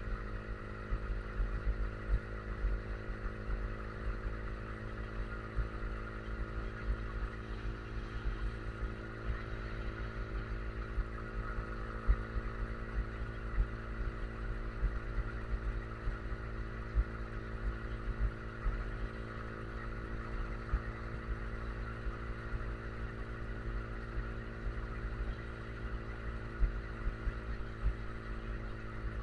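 Yamaha R15 V3's 155 cc single-cylinder engine running steadily at a constant cruising speed, with wind buffeting the microphone.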